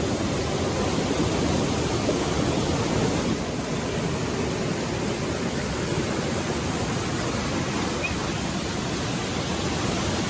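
Fast-flowing water of a mountain stream rushing steadily and loudly, an even hiss with no breaks.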